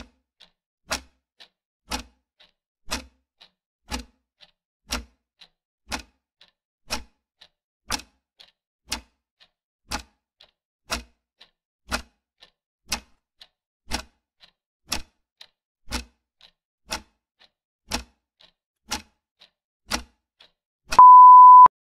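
Clock-ticking sound effect for a countdown timer: a loud tick once a second with a faint tick between each. Near the end, a loud, steady, single-pitched beep marks the timer running out.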